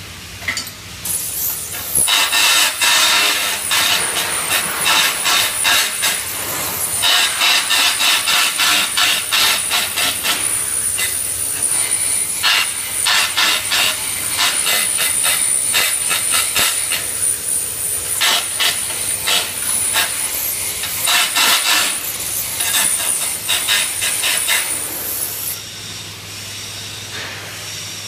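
Flux-cored arc welding: the arc strikes about two seconds in and runs as a steady crackling hiss, pulsing in loudness, until it breaks off a few seconds before the end. A low steady hum runs under it.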